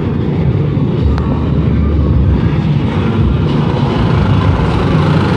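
Many motorcycle engines running together in a steady low drone, growing a little louder after about three seconds as the column of riders comes up the street.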